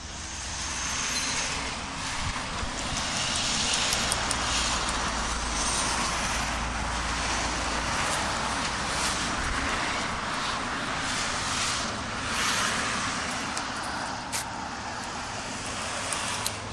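A heavy vehicle's engine running with a deep rumble that stops about ten seconds in, amid hissing and a few sharp clanks.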